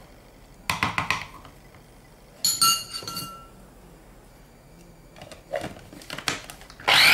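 A metal spoon clinking and tapping against the clear bowl of a small electric food chopper, one ringing clink near the middle, followed by knocks as the lid is fitted. Right at the end the chopper's motor starts to blend basil, pine nuts and Parmesan into pesto.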